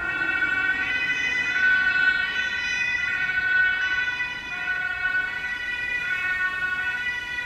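Ambulance two-tone siren (German Martinshorn) sounding, stepping back and forth between two pitches.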